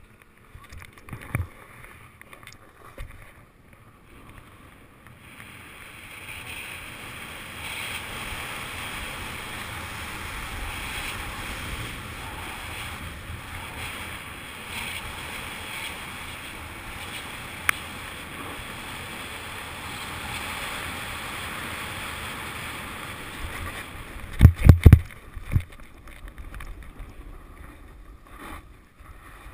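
Snowboard carving down a groomed run: a steady hiss and scrape of the board's base and edges on the snow, mixed with wind, builds up a few seconds in. Near the end come a few loud thumps.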